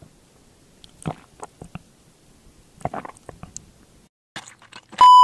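A few quiet sips through a drinking straw from a glass drink, heard as small clusters of short wet clicks. Near the end a loud, steady pure-tone beep starts.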